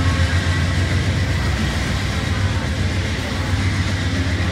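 Amtrak passenger cars rolling past alongside a station platform, wheels running on the rails with a steady low rumble.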